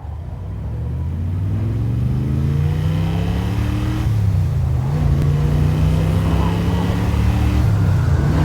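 Vehicle engine accelerating, its pitch climbing for about four seconds, dropping briefly as if shifting gear, then running steadily under load.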